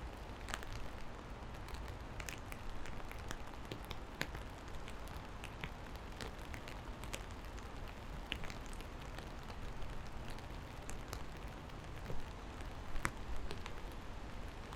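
Steady rain, with many individual drops landing in sharp scattered ticks over an even hiss, and a steady low rumble underneath.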